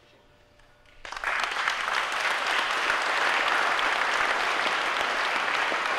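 Audience applause, starting suddenly about a second in and holding steady as a dense clapping.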